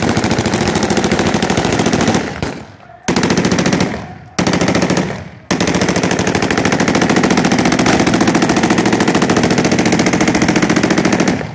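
Automatic gunfire in rapid, evenly spaced shots. There are several bursts of one to two seconds, then one unbroken burst of about six seconds that stops just before the end.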